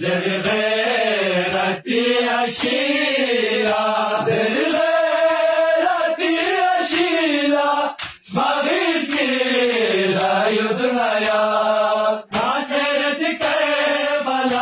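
Men's voices chanting a Shia noha lament in Balti, long drawn-out lines sliding in pitch, with short breaks between phrases. A few sharp slaps cut through the chant.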